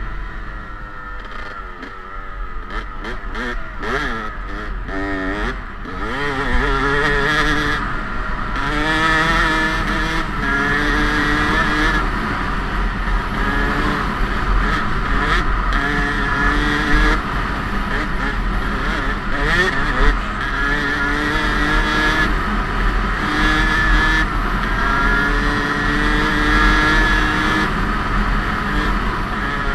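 Yamaha YZ two-stroke dirt bike engine under way, its pitch repeatedly climbing and dropping with throttle and gear changes; quieter and wavering for the first few seconds, louder and revving harder from about six seconds in. A steady low wind rumble on the helmet-mounted microphone runs underneath.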